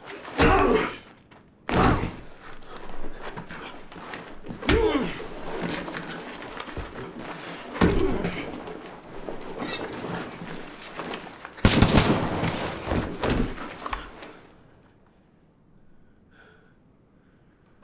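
Gunfire in a firefight: irregular loud shots and bullet impacts, with a dense volley about twelve seconds in, ending about fourteen seconds in.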